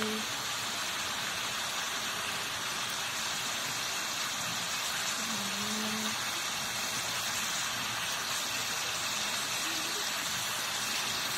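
Chicken pieces sizzling in hot oil in a kadhai, a steady hiss. A brief low voice-like sound comes about five seconds in.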